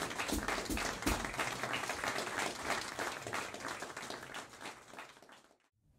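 Audience applauding, the clapping thinning out and dying away about five and a half seconds in.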